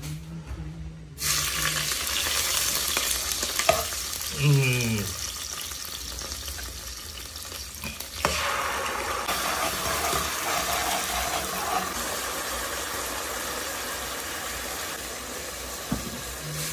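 Hot oil sizzling hard in a small pot as scallions and then soybean paste are fried and stirred with a spatula. The sizzle starts suddenly about a second in and surges again after a sharp click a little past eight seconds, when more goes into the pot.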